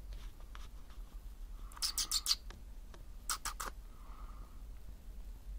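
A mouse scratching and rustling in shredded-paper bedding: two short bursts of quick scratchy clicks, about two seconds in and again a second and a half later.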